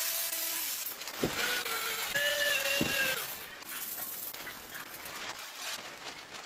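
Electric power tools grinding and sanding a handle blank: a steady abrasive hiss with a thin whine that shifts pitch a few times, and a couple of sharp knocks about one and three seconds in.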